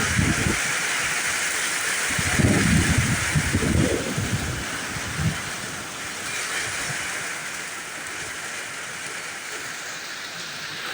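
Heavy rain falling in a steady hiss, with gusts of wind buffeting the microphone in low rumbles, strongest a couple of seconds in and easing off after that.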